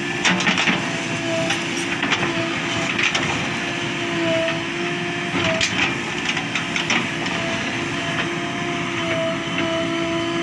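A JCB 3DX backhoe loader's diesel engine runs under load with a wavering hydraulic whine as the arm and bucket work, broken by a few sharp knocks and clanks from the bucket and mud.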